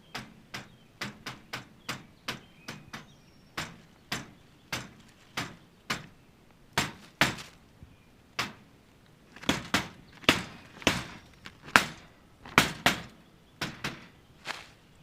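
Sharp metallic taps and clanks on a wire live trap, about thirty irregular strikes, loudest a little past the middle.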